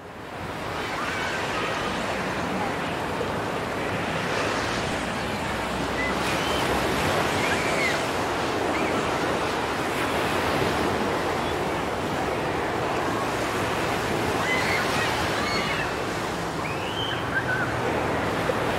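Steady wash of water like waves breaking, fading in at the start, with faint short high-pitched calls now and then.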